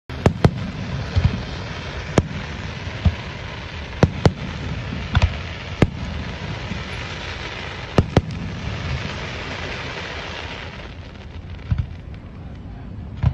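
Aerial firework shells bursting at a distance: about a dozen sharp bangs at irregular intervals, some in quick pairs, over a steady hiss that dies away about eleven seconds in.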